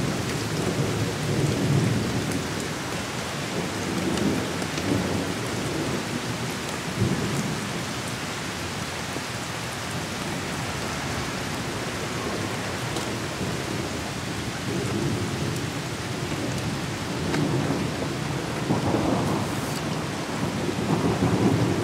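Steady rain falling, with low thunder rumbling in repeated swells that grow stronger near the end.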